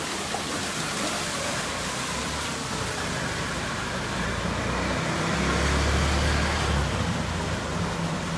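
Street traffic noise with a motor vehicle engine running, the rumble growing louder from about four seconds in, then easing.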